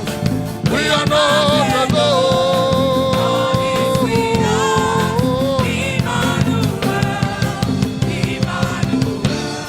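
Live gospel worship music: a full band with drum kit playing under held, sung vocal lines.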